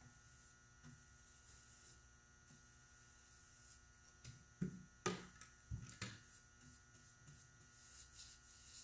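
Faint steady hum of a quiet room with a few soft knocks a little past the middle, as a paintbrush is dipped into a can of polyurethane and worked against it, and faint scratchy strokes of the brush on the wooden cabinet door.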